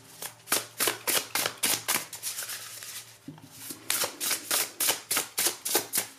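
Tarot cards being shuffled by hand: a quick run of crisp card slaps, about four a second, that pauses for about a second near the middle and then resumes.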